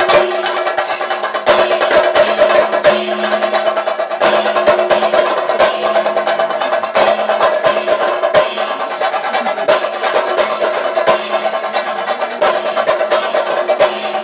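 Fast, dense drumming from a traditional drum ensemble, with a steady held pitch sounding above the drums.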